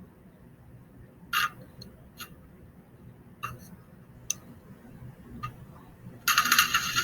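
Stick-welding electrode being struck on the work: a few short sputtering cracks as the arc flickers and dies. About six seconds in, the arc holds and a steady, loud crackling sizzle starts.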